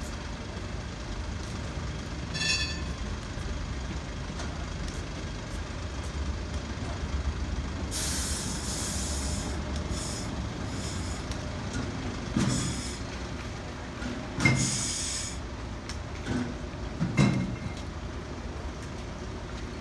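Sheffield Supertram car 118, a Siemens-Duewag articulated tram, running in and braking to a stop: a low rumble throughout, a brief high squeal about two and a half seconds in, then several bursts of hissing from about eight seconds in, with a few clunks as it comes to rest.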